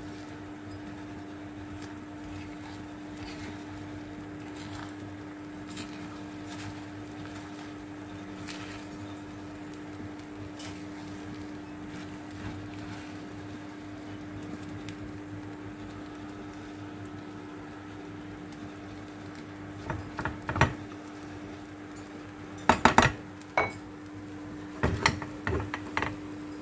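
Slotted spatula knocking and scraping against a frying pan in short clusters of sharp clacks, starting about twenty seconds in, over a steady hum.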